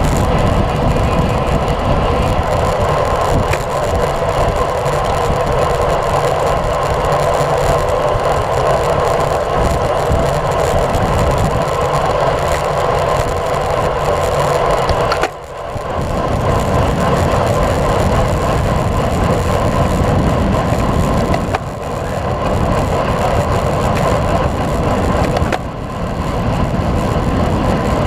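Steady rush of wind over a bike-mounted action camera's microphone, mixed with tyre and road noise from a road bike at speed on wet asphalt. It drops out briefly three times, about halfway and twice near the end.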